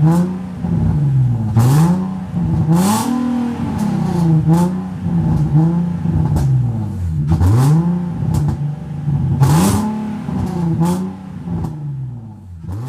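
Infiniti G37 sedan's 3.7-litre V6, fitted with an aftermarket cold air intake, blipped repeatedly from idle, its pitch rising and falling about once a second. The revving eases off near the end.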